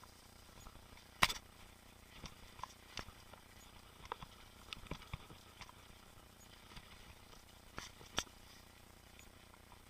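Mountain bike rattling over rough trail: irregular clicks and knocks from the bike, with a sharper knock about a second in and another near the end, over a faint steady hiss.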